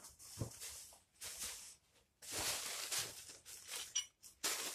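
Rustling and crinkling of a white plastic bag being handled to wrap a horseshoe, in several bursts, the longest about halfway through.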